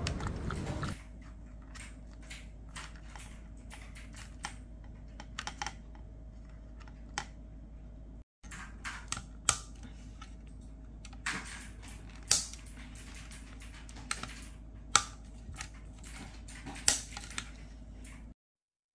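Scattered sharp plastic clicks and taps from handling portable dog water bottles and working the lock button, over a low steady hum. Music fades out about a second in.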